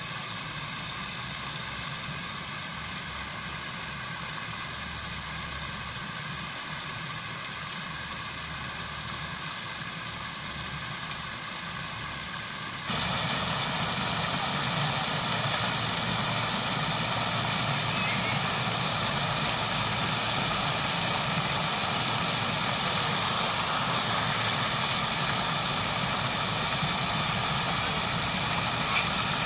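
Park fountain with many jets splashing into a round stone basin, a steady rush of falling water. About halfway through it becomes louder and brighter, heard from close beside the basin.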